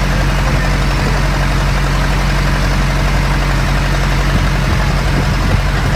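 A boat's engine running steadily under way, a loud, even low drone with a hiss of water and wind over it.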